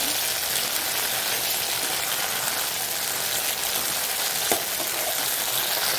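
Small whole brinjals sizzling in hot oil in a kadai as a steel spoon stirs them; they are well sautéed and the oil is separating back out. One sharp click about four and a half seconds in.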